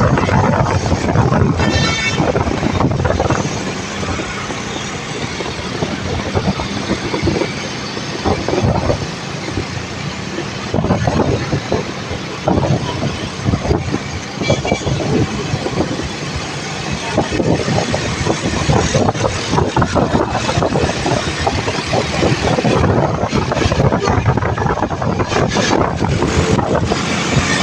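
Road traffic noise from a bus and other vehicles on a toll road, loud and continuous. A brief high-pitched tone sounds about two seconds in.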